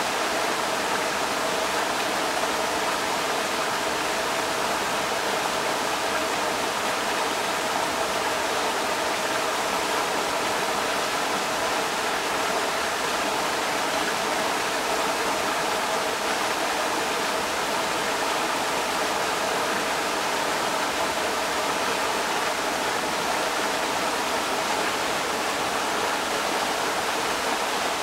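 Creek water rushing over rocks, a steady even rush without breaks.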